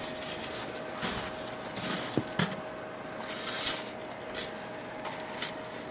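Short crunching and scraping of snow from footsteps and snow shovels on a snow-covered deck, with a few sharp knocks about two seconds in and one near the end, over a faint steady hum.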